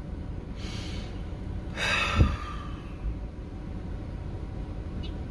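A woman breathing audibly: a soft breath in about half a second in, then a heavier breath out about two seconds in, like a sigh, over the steady low hum of a car cabin.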